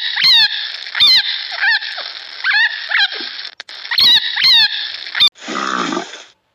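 An animal giving a string of short, high, squeaky calls, each bending in pitch, about two a second. About five seconds in a lower, rougher call follows for about a second.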